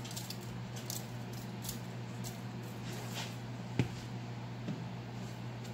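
Seasoning shaken from a shaker bottle onto fish fillets on aluminium foil: faint scattered rattling ticks over a steady low hum, then a single sharp knock about four seconds in as a container is set down on the stone counter.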